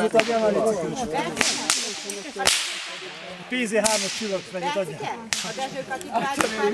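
A group of people chatting with overlapping voices, with several sharp cracks or pops about every second.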